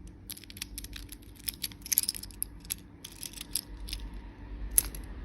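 Plastic candy packaging being handled and opened: a quick, irregular run of crisp crackles and clicks, with one sharper click near the end, over a low hum.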